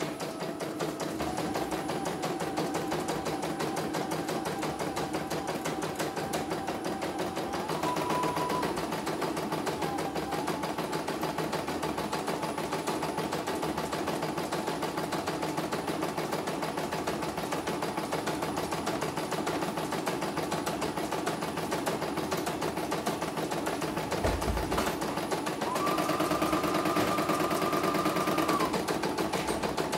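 Computerized embroidery machine stitching out a design on hooped fabric, running smoothly on a test run: fast, even needle strokes with a motor whine. The whine steps up in pitch briefly about eight seconds in, and again, louder, for a few seconds near the end.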